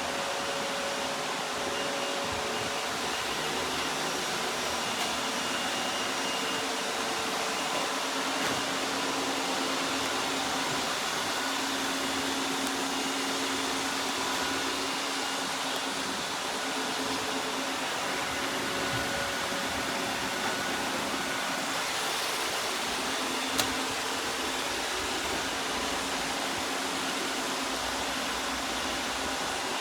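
iRobot Roomba robot vacuum running, a steady whirr from its suction motor and brushes with faint steady tones. A single sharp click comes about two-thirds of the way through.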